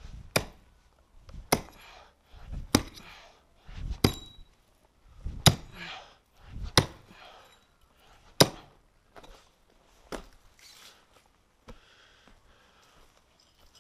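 Axe chopping into the roots of a birch stump in the ground: seven hard strikes at an even pace, then a few lighter knocks near the end.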